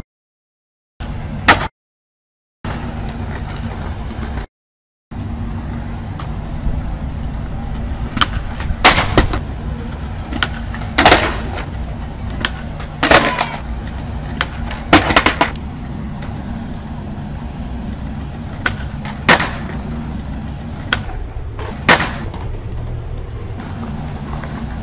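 Skateboard wheels rolling over stone paving with a steady low rumble, broken by a string of sharp cracks and slaps as the board is popped and slams down on attempts to clear the gap. The sound cuts briefly to silence twice near the start where shots are joined.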